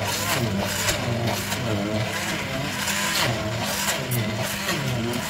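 Hand blender motor running in a glass jar of fried chicken liver pâté. Its pitch wavers up and down as the blade works through the thick mixture.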